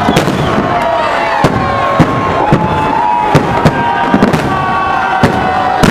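Fireworks salute with about ten sharp bangs of shells bursting, irregularly spaced, over a continuous din of crackle and wavering whistling tones.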